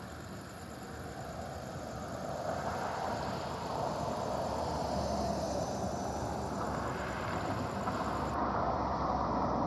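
Passing road traffic: an even rush of car tyre and engine noise that slowly grows louder.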